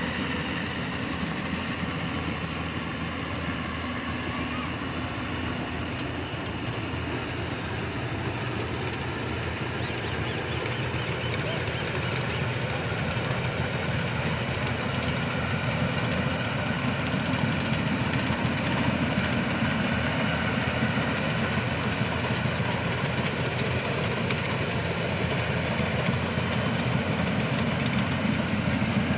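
Yanmar rice combine harvester running steadily as it cuts and threshes ripe rice, a constant machine noise that grows a little louder from about halfway through.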